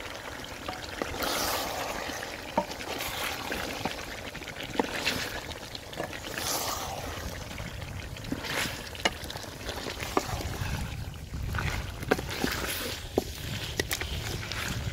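A wooden spoon stirring potato chunks and chicken through oily masala in a large aluminium pot while they fry. The food swishes with each stroke, in swells every second or two, and there are sharp knocks of the spoon against the side of the pot.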